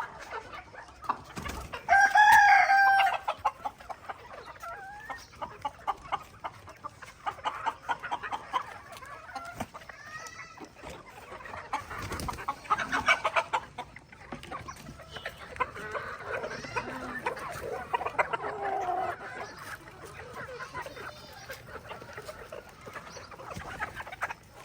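A flock of chickens clucking continuously, with a rooster crowing loudly about two seconds in.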